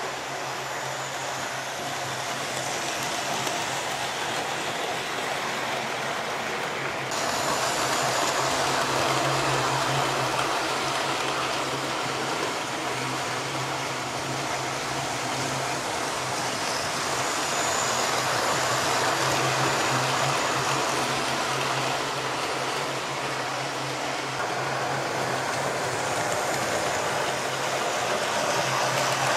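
Model trains running round the layout's track loops: a steady whirr and rumble of small electric motors and wheels on rail, with a low hum. It swells about seven seconds in and again later as a train passes close.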